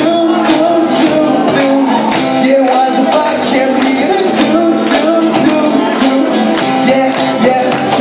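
Live band playing with electric guitar and a cajón (box drum) keeping a steady beat, and a singer at the microphone.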